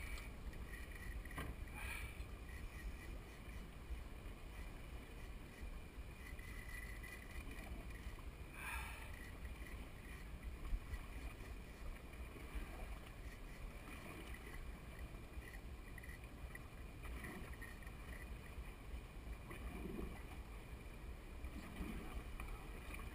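Low, steady rumble of a sportfishing boat's engines idling, with faint water and wind noise and a few light knocks.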